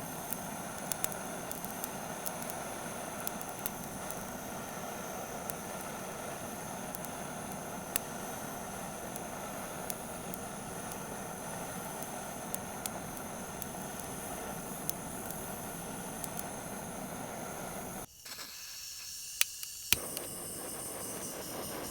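Gas torch flame hissing steadily, with scattered small crackles and pops from firewood catching. About eighteen seconds in the hiss cuts out suddenly, two sharp clicks follow, and the hiss starts again.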